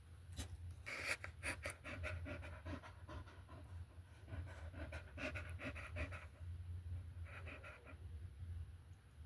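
A dog panting in quick, rhythmic breaths, pausing briefly about six seconds in before a short final spell of panting.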